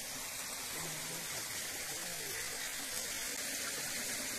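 Steady rush of a small hill stream running over rocks.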